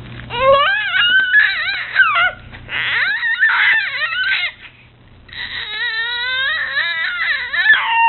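Baby's high-pitched fussy vocalising: squealing, crying-like wails in three long stretches, each bending up and down in pitch, with short pauses between.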